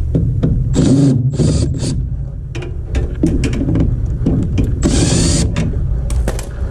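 Cordless drill spinning in short bursts, three times, as it drives screws out of a furnace cabinet, with clicks and rattles of handling metal parts over a steady low rumble.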